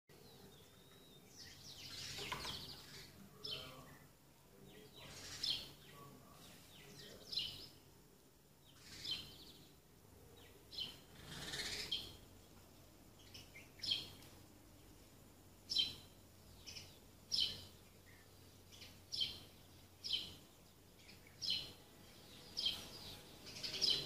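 House sparrows chirping: short, high chirps repeated every one to two seconds, more regular in the second half.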